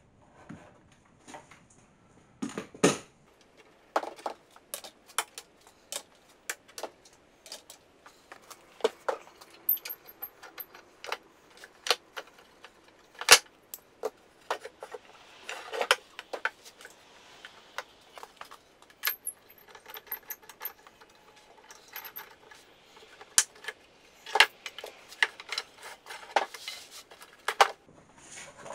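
Wooden strips knocking and clacking against each other, with the metal and plastic parts of bar clamps clicking, as the strips are set up and clamped for a glue-up. The knocks come singly and in quick runs, irregularly.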